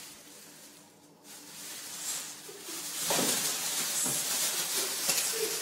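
Thin plastic bag crinkling and rustling as a cat grips it in its mouth and drags it across a tile floor. The crackle grows louder and denser about three seconds in.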